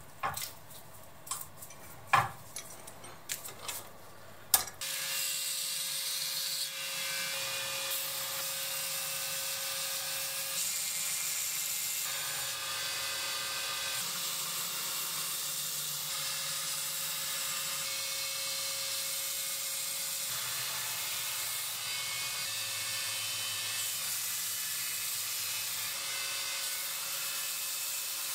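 A few clicks and knocks, then about five seconds in a stationary band machine, a knifemaker's belt grinder or band saw, starts and runs steadily with a constant motor tone as a layered knife-handle block is pressed against its moving band.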